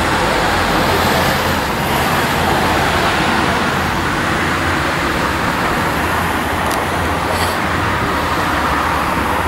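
Two SSB DT8.12 light-rail trains running slowly side by side on parallel tracks: a steady noise of wheels on rails and the trains' drive.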